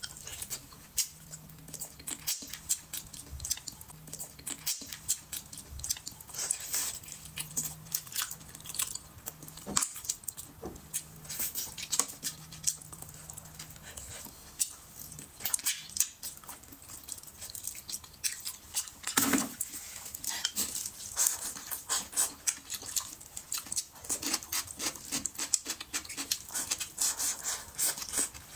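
Close eating sounds of someone gnawing braised meat off the bone: chewing with many small wet clicks and lip smacks throughout.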